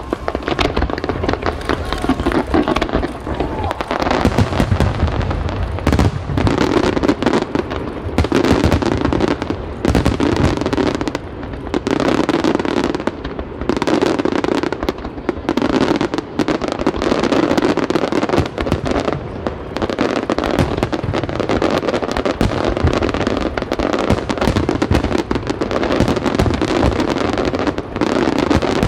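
A fireworks display: many shells bursting in quick succession, with crackling between the bangs.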